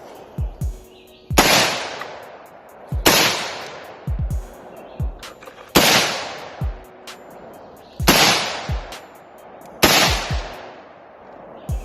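Five loud gunshots at irregular intervals, each with a long echoing tail, over a music track with deep, falling bass kicks and quick hi-hats.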